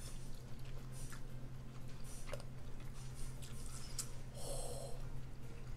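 Close-up eating sounds while picking at king crab: a few small clicks and cracks of the shell, and one short, sharp breath or sniff about halfway through, over a steady low hum.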